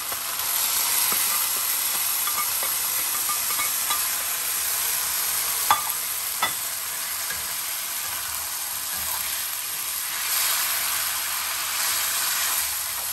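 Chopped tomatoes and their juice sizzling in a hot stainless wok with seared beef, a steady frying hiss that swells as they land. There are two sharp clicks about six seconds in, then a slotted spatula stirring and scraping the pan near the end.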